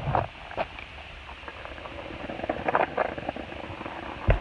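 Phone microphone handling noise: scattered clicks and rustling, with one strong low thump near the end.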